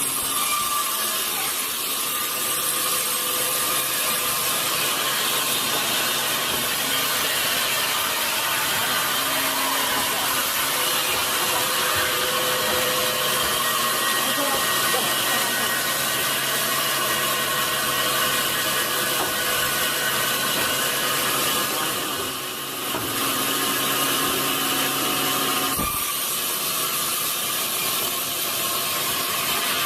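Sawmill saw cutting through a large log: a steady, noisy hiss and whine of the blade in the wood, easing briefly about 22 seconds in.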